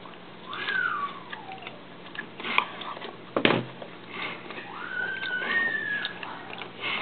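An animal calling twice: a short call that rises and then falls, and about four seconds in a longer, higher call held nearly level. A sharp knock falls between them, over a steady low hum.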